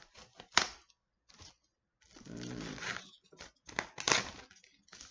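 Clear plastic shrink wrap being pulled off a cardboard box: a few sharp crackles, then from about two seconds in a longer run of crinkling and tearing as the film comes away.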